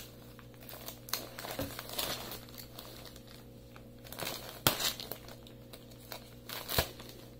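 A shipping package being torn open by hand: plastic or paper packaging crinkles and rustles on and off, with a few sharper crackles and rips along the way.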